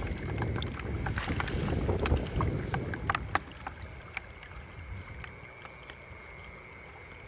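Shallow rice-paddy water sloshing and splashing, with sharp clicks and knocks, for about the first three and a half seconds, then dying down to scattered faint clicks.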